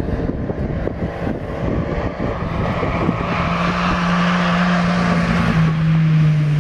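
Off-road 4x4's engine approaching, getting louder as it pulls at a steady pitch, which steps down near the end.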